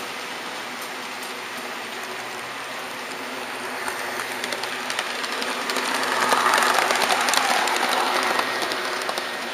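HO-scale model trains running on the layout: a steady hiss of small wheels on the rails. About four seconds in it swells to a louder mechanical rattle with rapid clicking as another model train passes close on the next track, then fades near the end.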